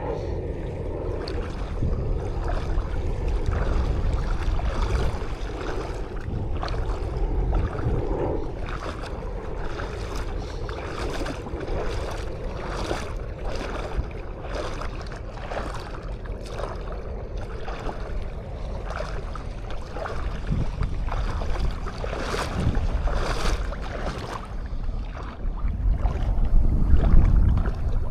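Small sea waves washing along the shore, with wind buffeting the microphone, heaviest near the end. Through the middle comes a steady run of short scuffs, about two a second: footsteps walking in sand.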